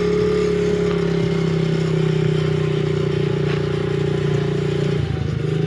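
Pit bike engine running at a steady, even speed, then easing off about five seconds in.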